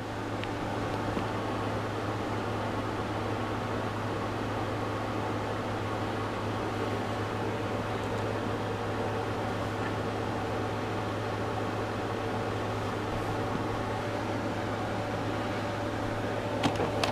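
Steady mechanical hum with a constant low drone and faint higher tones, like a fan or air conditioner running in a small room. A couple of light clicks come near the end.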